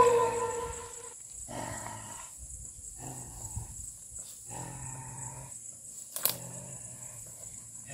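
A long howl falls in pitch and fades out in the first second, followed by a few low, rough growls several seconds apart from a wild creature. A sharp snap comes just past six seconds.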